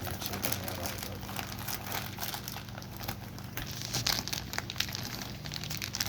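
Plastic fish shipping bag crinkling and rustling as it is handled and its knot is worked loose, in irregular crackles that grow busier and louder about four seconds in.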